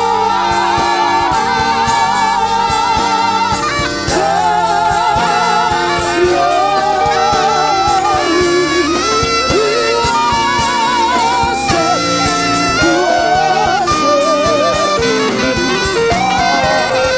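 Gospel worship music: a voice sings long held notes with a wide vibrato over a steady instrumental accompaniment.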